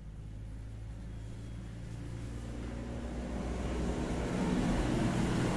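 A motor vehicle drawing near and passing: a low engine hum with road noise that grows steadily louder, loudest near the end.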